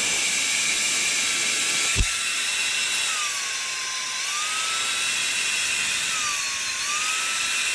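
Small cordless handheld vacuum-blower running in blower mode: a high-pitched motor whine over a rush of air. The pitch dips and climbs back up several times. A single switch click comes about two seconds in.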